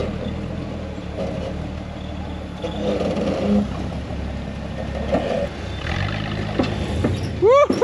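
Rock buggy engine running at low crawling speed, with some clatter as it works over the rock. Near the end, a loud run of short, pitched squeals sets in, each rising and falling, several in quick succession.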